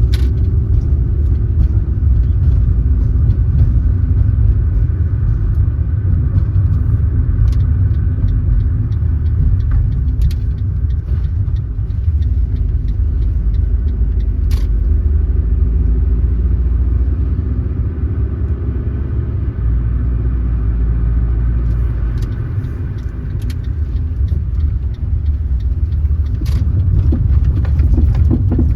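A car driving along, with a steady low rumble of road and engine noise, the engine's pitch drifting gently up and down with speed. A few faint clicks sound now and then.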